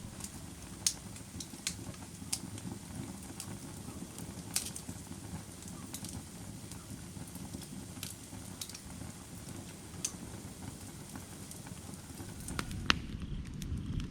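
Firewood burning with a steady low rumble and irregular sharp crackles and pops, about one a second.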